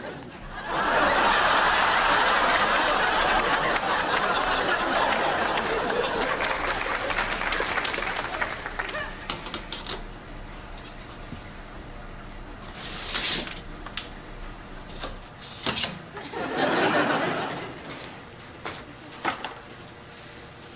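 Studio audience laughing: a long burst of laughter that swells early on and dies away over several seconds, then a shorter second burst near the end, with a few small knocks in between.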